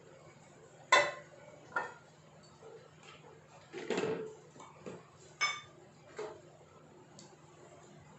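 A metal cake tin and a small steel bowl being handled and set down on a kitchen counter: about six separate knocks and clinks, the sharpest about a second in, one with a short metallic ring about five and a half seconds in.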